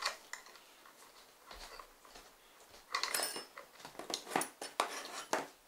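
Hand screwdriver turning a screw into a Printrbot 3D printer's frame: faint scraping at first, then a quick series of sharp clicks and scrapes in the second half.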